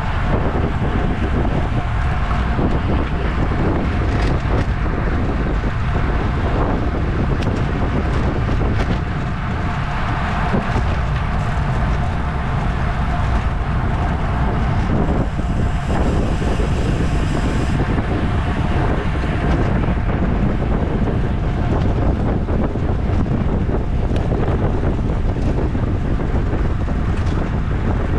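Steady wind rushing over the microphone of a road cyclist riding at race speed.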